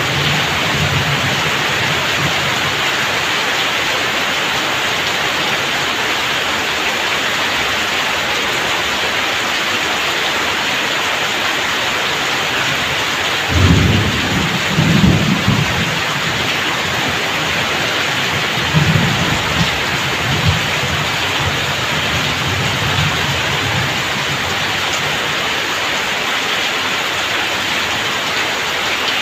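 Heavy rain falling steadily and streaming off a roof's edge onto the ground. Low thunder rumbles about halfway through and again a few seconds later.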